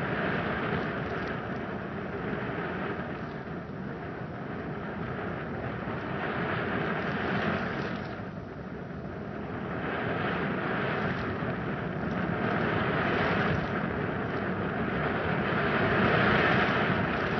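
Ground fountain firework spraying, a continuous hiss that swells and dips, fading briefly about eight seconds in and loudest near the end.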